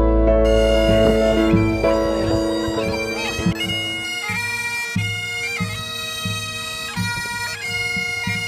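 Several Highland bagpipes playing a tune together over a steady drone. They come in about half a second in, as a piano backing track fades out.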